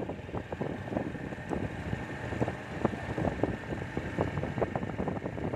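Wind buffeting the microphone on a moving Honda motorcycle, in irregular gusts over the steady rush of the ride.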